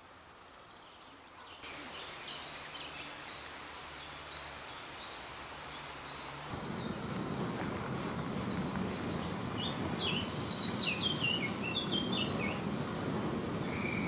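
Wild birds singing over a steady background noise. A short high note is repeated about twice a second at first; then the background noise abruptly gets louder and a different bird sings quick, falling phrases.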